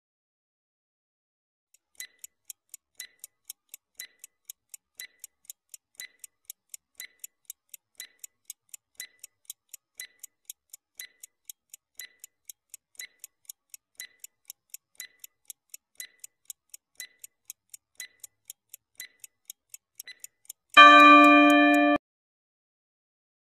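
Clock-ticking sound effect for a quiz countdown timer, about two ticks a second with every other tick sounding higher. About 21 seconds in, a loud buzzer sounds for about a second to mark time up.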